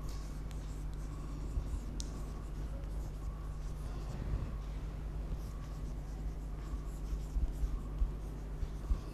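Chalk scratching on a blackboard as words are written out, with a few sharper taps near the end, over a steady low hum.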